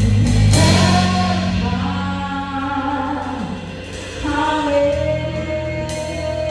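Live gospel band with drum kit playing a held passage between sung lines, with voices and a sustained chord over a bass line; a cymbal crash about half a second in and drum hits near the end.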